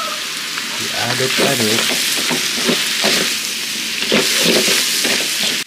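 Stir-fry of young jackfruit, chili and anchovies sizzling steadily in plenty of oil while being stirred.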